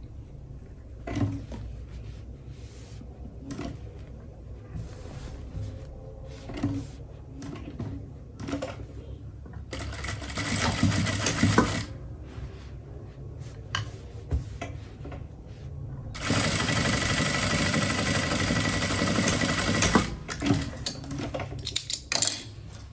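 Domestic sewing machine stitching the darts of trouser pieces, in two runs: a short one about ten seconds in and a longer steady one from about sixteen to twenty seconds. Between the runs, scattered clicks and knocks.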